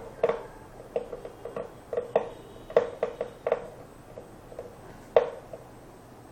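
A screwdriver working in the screw terminals of power-supply connectors as they are tightened: a dozen or so small, irregular clicks and taps, the loudest about five seconds in, growing sparser near the end.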